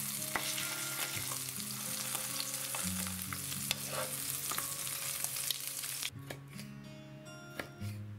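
Bonito fillet sizzling in hot oil in a frying pan, with a few light clicks, until the sizzle cuts off suddenly about six seconds in. Soft background music with plucked notes plays underneath.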